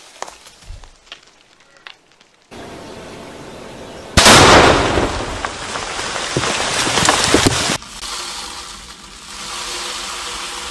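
A Tannerite charge detonating in a beaver dam about four seconds in: one sharp, very loud blast, then mud, water and debris raining down with crackling patter for about three seconds until it cuts off. Before it, scattered pattering of debris still falling from an earlier blast.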